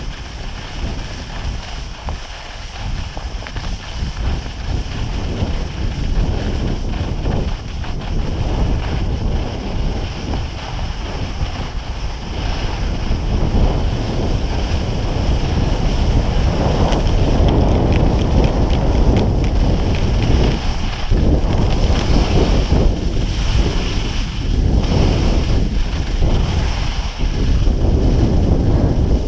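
Wind buffeting a skier's action-camera microphone on a downhill run, with the hiss of skis sliding over groomed snow. It gets louder from about halfway through.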